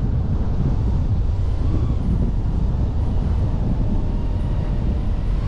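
Steady low rumble of wind buffeting the microphone while on the move, mixed with vehicle running noise.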